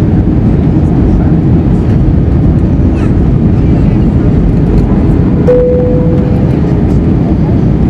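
Airbus A321 cabin noise on the descent to land: a steady, loud, low rush of airflow and engine noise. A single short tone sounds about five and a half seconds in and fades away.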